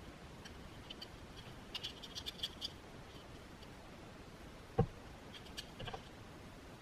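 Faint crackling and scratching of blue painter's tape being pulled and pressed onto a primed metal plow part, with one dull knock about five seconds in as the part is set back down on the bench.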